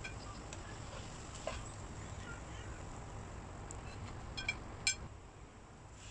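Oil sizzling faintly under a scallion pancake frying in a non-stick pan, with a few sharp crackles and pops about four and a half to five seconds in.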